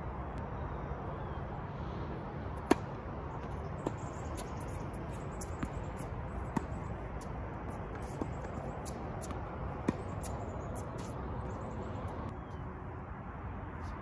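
Tennis ball struck by rackets and bouncing on a hard court during a singles rally: sharp pops about one to two seconds apart, the loudest one early, over a steady background rush.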